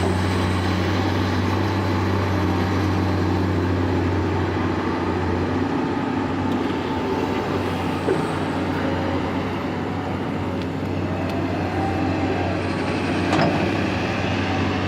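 Long-reach tracked excavator's diesel engine running steadily under load, with a couple of short knocks from the working machine about eight and thirteen seconds in.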